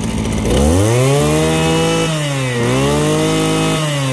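Mitsubishi TL33 brush cutter's small two-stroke engine revved up from idle twice. The pitch climbs and holds high, dips briefly about two and a half seconds in, climbs again, then falls back toward idle near the end.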